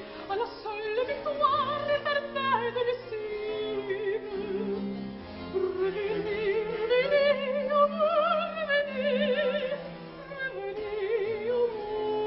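Operatic soprano singing a melody with wide vibrato, holding long notes and sliding between them, over instrumental accompaniment.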